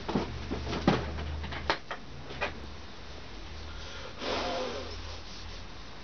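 A few sharp knocks and clicks of things being handled, then a short rustle about four seconds in, over a low steady hum.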